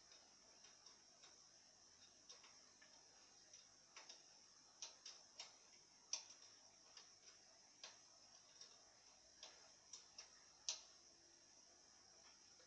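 Faint, irregular clicks and ticks, coming one to three a second at uneven spacing, against near silence; the sharpest come about halfway through and again near the end.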